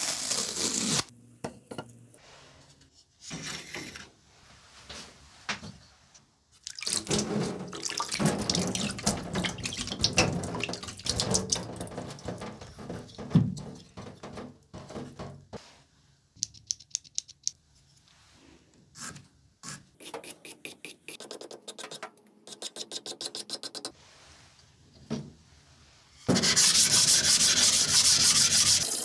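Plastic masking tape peeled and torn off a blade in the first second, then scattered handling noises and sharp clicks. From about three seconds before the end, a loud steady gritty scraping as a flattening stone is rubbed back and forth over a whetstone clamped in a vise, levelling its surface.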